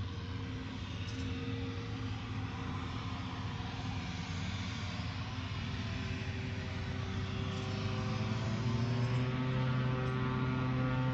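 Cessna Conquest II's twin Garrett TPE331 turboprops humming from across the airfield as a steady droning tone. The drone grows louder in the second half, with higher tones joining it as the engines come up in power.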